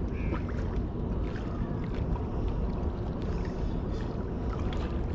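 Wind rumbling on the camera microphone, with water lapping against shoreline rocks and faint small ticks.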